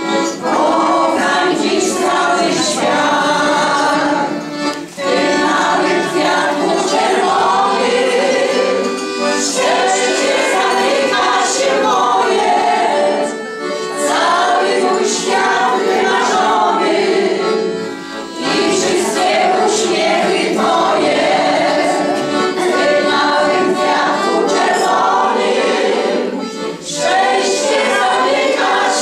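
A small amateur choir of older women singing a song together, with brief pauses between phrases.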